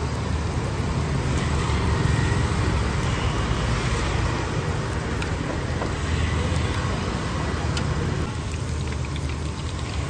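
Hot oil sizzling steadily as breaded cutlets deep-fry in a large pot, with scattered small crackles and a few light taps of metal tongs. A steady low rumble runs underneath.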